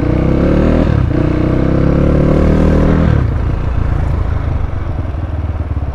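Motorcycle engine heard from the rider's seat, accelerating with a rising pitch and a brief dip about a second in, then easing off about three seconds in to a lower, steady run.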